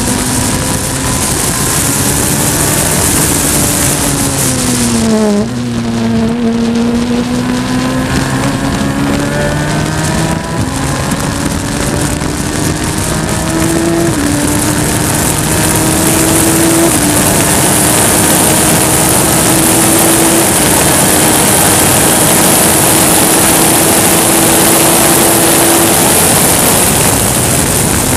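Race car engine running hard: its pitch falls steeply to a low point about five seconds in as the car slows for a corner, then climbs again under throttle with a couple of drops in pitch at gear changes. A rushing wind noise grows louder over the second half as speed builds.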